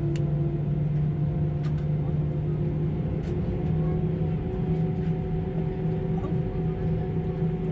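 Cabin hum of an Airbus A320-214 with its CFM56 engines at idle before take-off: a steady low rumble carrying a few constant tones, which step slightly higher about three and a half seconds in.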